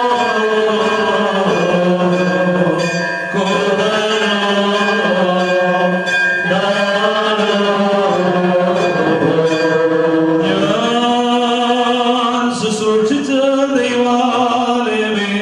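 Male clergy chanting a slow Syriac-rite funeral hymn, long held notes gliding from pitch to pitch, with short breaks between phrases.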